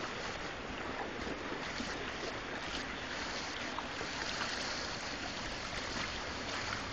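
Steady rush of running fountain water, an even hiss without distinct splashes.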